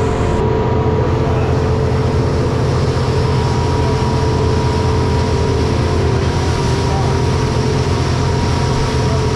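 Motorboat underway at speed: its engine runs steadily with a strong low hum, over the rush of water along the hull and wake.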